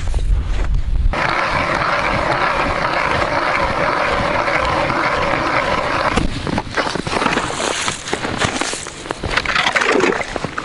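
Footsteps crunching and trudging through deep snow, with wind buffeting the microphone in the first second.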